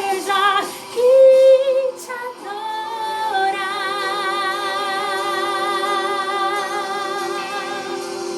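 Woman singing a gospel song: quick vocal runs at first, then from about three and a half seconds a long held note with vibrato.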